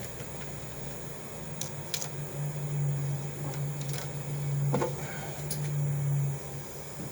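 A few light clicks and taps from hands handling parts inside a powered-down fire alarm control panel, over a steady low hum that swells for a few seconds in the middle.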